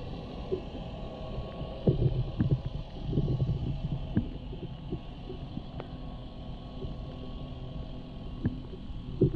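Boat motor humming steadily while trolling, with irregular low thumps and knocks.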